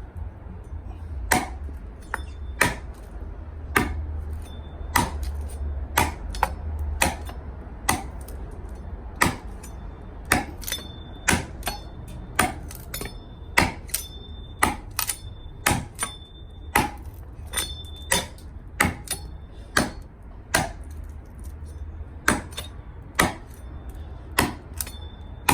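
A 1075 carbon steel LT Wright Overland Machete chopping repeatedly into wood, one sharp strike after another at about one to two a second.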